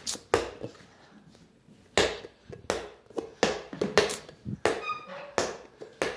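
A series of sharp, unevenly spaced knocks and thuds, about a dozen, with a brief squeak about five seconds in.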